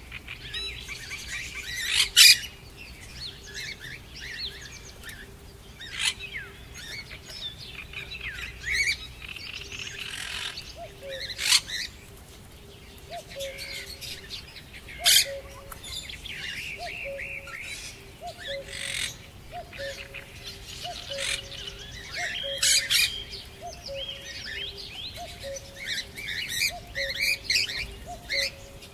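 Birds chirping and calling, with several loud brief squawks, and from about the middle a low note repeating roughly once a second.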